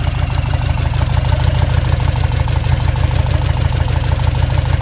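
Tata Zest petrol engine idling with an even, pulsing beat during a cylinder-by-cylinder misfire check. The engine has a cylinder 3 and 4 misfire, which the mechanic traces to a cylinder-head fault that keeps those cylinders from building compression.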